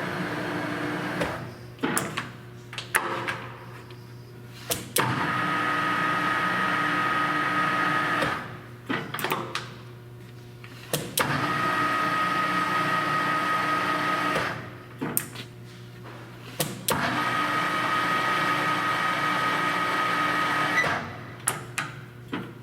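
The headstock gearing of a Sharp 16" x 40" engine lathe runs with a steady gear whine, is stopped, and is run again in spells of about three seconds, stepping through the spindle speeds. Between runs there are sharp clunks and clicks as the clutch and speed-change levers are shifted.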